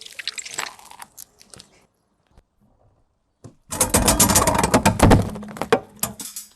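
Crunching and cracking as a car tyre rolls over and crushes brittle objects. A short spell of crackling comes first, then, after a pause of about two seconds, a louder, longer run of dense snapping and crunching.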